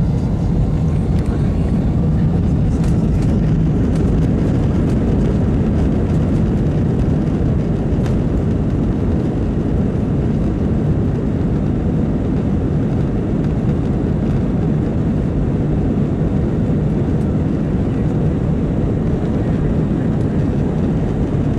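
Airliner in flight heard from inside the passenger cabin: a steady, deep drone of jet engines and rushing air.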